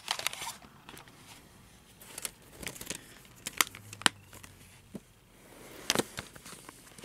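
A plastic Blu-ray case in its glossy cover being handled: crinkling and rustling plastic with scattered small clicks, and a few sharper clicks and taps about halfway through and again near the end.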